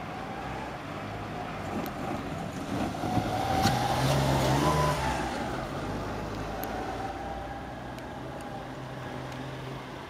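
Diesel engine of a rail-carrying track maintenance motor car running as it approaches slowly. It grows louder from about three to five seconds in, with a single sharp clank, then settles back to steady running.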